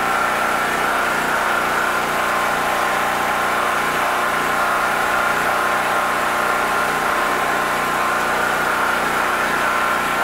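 Steady engine drone with a constant high whine, unchanging throughout.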